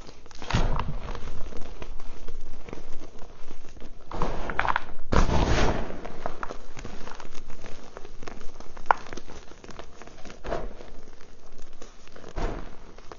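Chunks of reformed gym chalk crunching and crumbling as hands squeeze and grind them, with a soft pour of powder and pieces falling back into the tub. The loudest crunches come about half a second in and again around five seconds in.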